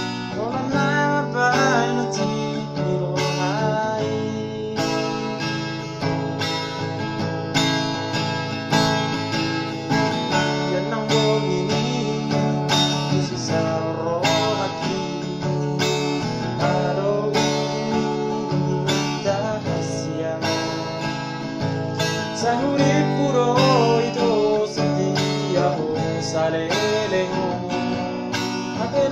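Acoustic guitar strummed steadily, accompanying a man singing a Batak song.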